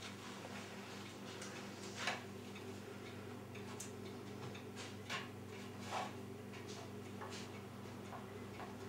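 Faint handling sounds of margarine and its paper wrapper being set on a kitchen scale: scattered light clicks and rustles, the most distinct about two, five and six seconds in, over a steady low hum.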